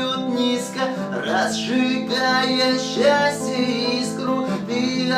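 Acoustic guitar strummed, playing the chords of a song in a steady rhythm.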